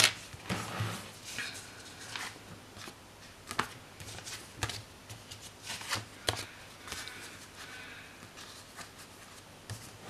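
Hands handling paper sticker sheets and a spiral-bound planner: soft paper rustling with scattered light taps, a few sharper ones a second or two apart.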